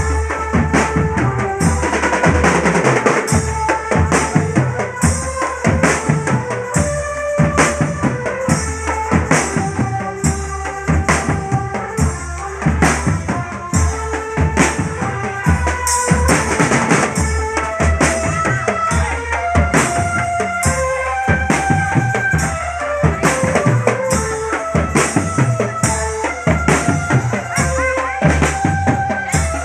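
Marching drum band playing: snare drums and a bass drum keep a steady beat, about two strokes a second, with a melody over them.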